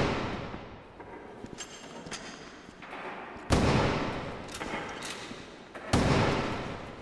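Heavy booming impact sound effects from a film action-scene mix: two sudden loud hits, about three and a half and six seconds in, each dying away slowly, with the fading tail of an earlier hit at the start.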